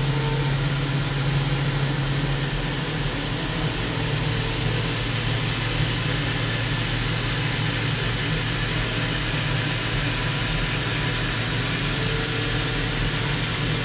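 Half-inch Kennametal HARVI III carbide end mill roughing Monel 400 at full depth on a CNC mill, with coolant spraying over the cut: a steady cutting sound with a thin, steady high tone and no chatter. It is a stable cut that sounds perfect.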